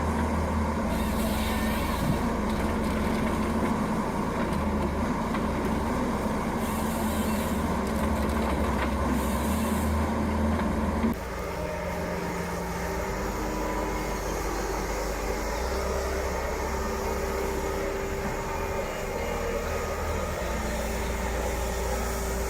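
Heavy forestry machinery running steadily, a deep engine hum with a held low tone. About halfway through it switches abruptly to a different steady machine sound.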